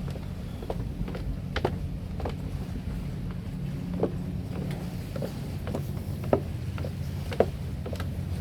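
A steady low machine hum runs throughout, with irregular sharp clicks and knocks, about one or two a second, over it.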